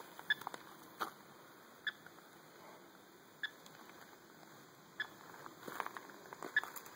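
Radio-telemetry receiver picking up a box turtle's radio transmitter: short, faint beeps about every second and a half, with leaf litter rustling and a few clicks.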